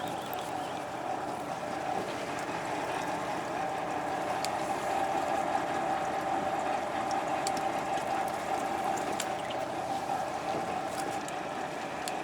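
Fishing boat running underway: a steady engine hum over the rush of water and wind.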